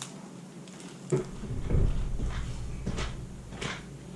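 Soft handling knocks and clicks, starting with a sharp knock about a second in and followed by a low rumble for a couple of seconds.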